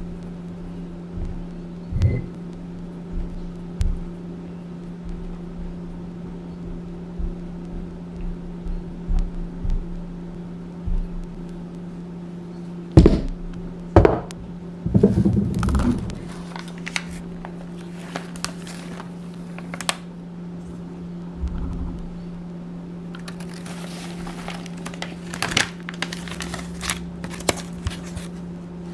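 Stone pestle pressing and tapping in powdered block gym chalk in a stone mortar: soft dull knocks, then two sharp knocks about halfway through. Near the end comes a crisp crumbling crackle as broken chunks of the chalk block crumble into the powder. A steady low hum runs underneath.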